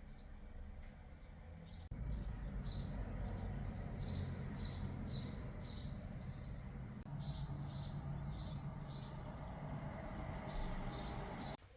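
A small bird chirping over and over, short high chirps about two to three a second, over a low steady rumble that gets louder about two seconds in.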